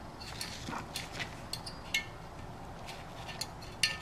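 Steel feeler gauge blades clicking and tapping against the piston ring and the cylinder bore as a blade is tried in the second compression ring's end gap: a scattering of light metallic clicks, some with a brief ring.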